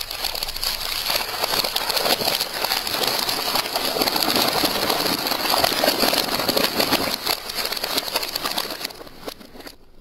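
Thin plastic face masks crackling and crunching under a car tyre as it rolls over them on concrete: a dense crackle of many small snaps that fades away about nine seconds in.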